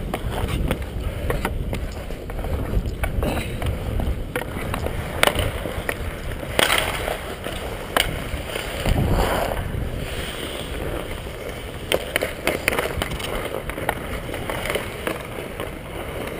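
Ice skate blades scraping and carving on the rink with a steady hiss, broken by sharp clacks of hockey sticks and puck every second or two.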